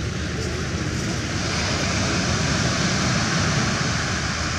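Steady rumble of fishing boat engines under a hiss of wind and water that swells about a second and a half in.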